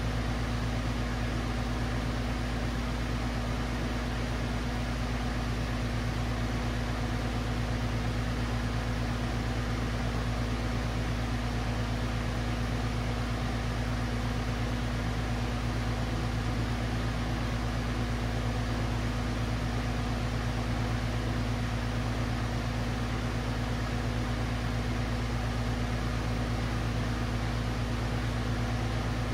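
Steady rushing hiss of a gas brazing torch flame held on a copper joint, over a constant low hum.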